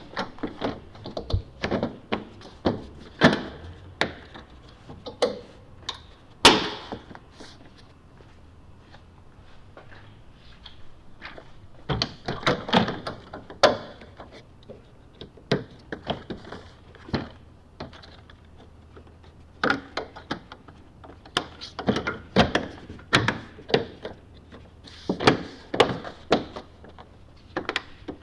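Plastic frunk trim panels on a Tesla Model X being pressed down by hand, their clips snapping into place. The result is a long series of sharp clicks and thunks, with a lull of a few seconds about a third of the way in.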